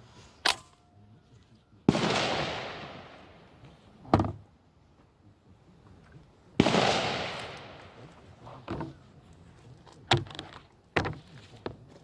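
SKO Shorty shotgun firing two shots about five seconds apart, each blast followed by a long echo that dies away over about two seconds. Shorter sharp clacks and clicks fall before, between and after the shots.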